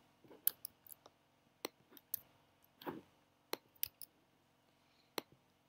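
About nine faint, irregularly spaced clicks of a computer keyboard and mouse as code is edited.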